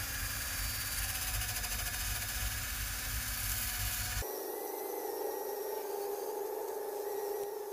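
Milwaukee 12-volt cordless drill spinning a wire wheel against tree bark, scraping spray paint off the trunk. About four seconds in the sound changes abruptly, losing its low rumble and leaving a steady motor whine.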